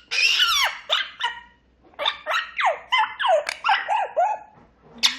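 African grey parrot calling loudly: a long call falling in pitch at the start, then after a short pause a rapid string of short squawks and whistles.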